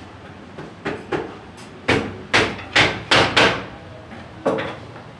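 A run of about eight sharp knocks, the loudest five in quick succession in the middle, as a wooden rocker rail is knocked into place on a black iron rocking-chair frame.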